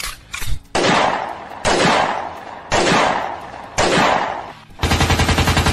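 Gunfire sound effects on a soundtrack: four loud blasts about a second apart, each tailing off, then a rapid machine-gun-style rattle near the end.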